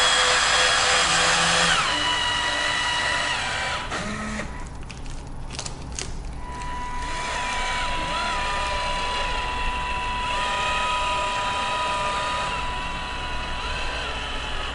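Electric caulking gun pushing windshield urethane, its small motor whining steadily and stopping about two seconds in. It is followed by a few light clicks, then a thinner steady whine with small shifts in pitch.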